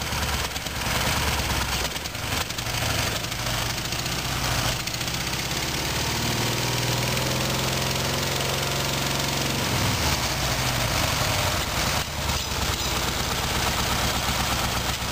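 1958 IMZ M-72M motorcycle's side-valve flat-twin engine running just after its first start in 18 years, revved up for a few seconds midway and then dropping back to idle. It is running on one cylinder only, the other having practically no compression.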